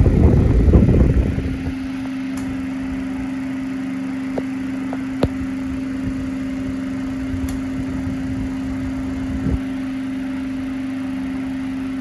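A 1930 Ercole Marelli O30 cast-iron desk fan running: its restored electric motor gives a steady, even hum with the whoosh of its bronze blades. For the first second or so, air from the fan buffets the microphone, then the hum carries on evenly with a few faint ticks.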